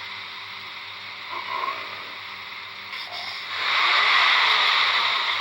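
A person's stomach growling and gurgling, with the loudest, longest rumble swelling about three and a half seconds in.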